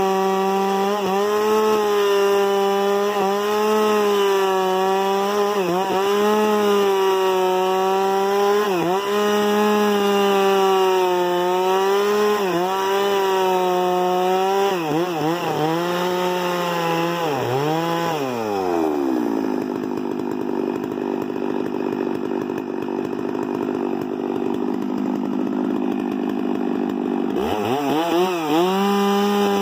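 Chainsaw running at full throttle while cutting wood, its pitch dipping again and again as the chain bites. About two-thirds of the way through it drops to idle, then revs sharply back up to full speed near the end.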